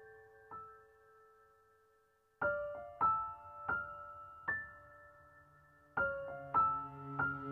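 Soft background piano music: single notes ringing out one after another, with a pause of about a second and a half near the start. A low held tone comes in under the notes near the end.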